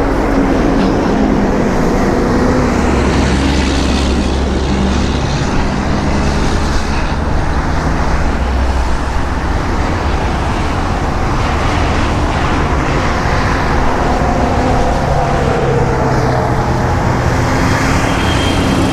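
Interstate traffic passing close by at highway speed: a steady loud rush of tyre and engine noise from cars and trucks going by.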